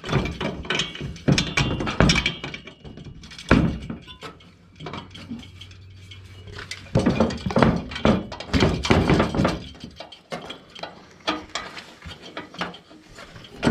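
Irregular knocks, thunks and metallic clinks of steel jack parts and hardware being handled and fitted together while assembling a lift jack.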